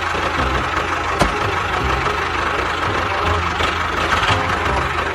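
Engine idling with a steady, uneven low throb, and one sharp click about a second in.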